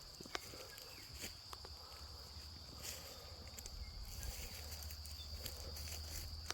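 A steady high-pitched insect trill, with scattered footsteps crunching underneath.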